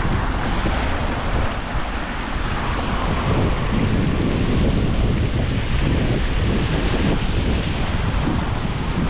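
Wind buffeting the microphone: a steady loud rumble and hiss that rises and falls unevenly.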